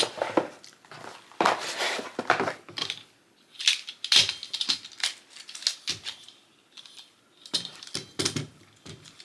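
A new tripod and its packaging being handled: irregular clicks and knocks with some rustling, in short bursts separated by quiet gaps.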